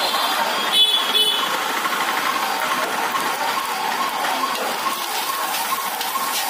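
Stir-frying in a steel wok over a gas burner: a steady, engine-like roar with a regular wavering hum. About a second in, the metal spatula strikes the wok twice with sharp clanks.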